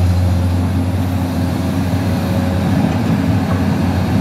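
Diesel engine of a Komatsu PC200 hydraulic excavator running steadily with a low drone while the machine swings a loaded bucket over a dump truck.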